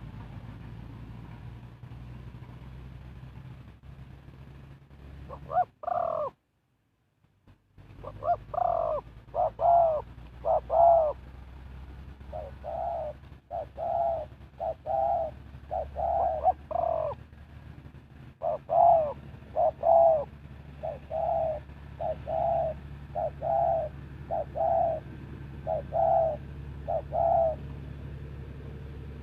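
Spotted dove cooing: a long series of short, low coos in groups of two or three, over a steady low hum. The sound cuts out briefly about six seconds in.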